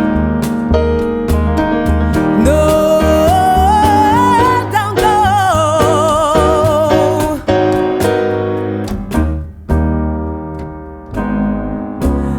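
Background music: the instrumental break of a slow love ballad. Piano chords play over a steady low pulse, and a wavering melody line carries the tune through the middle.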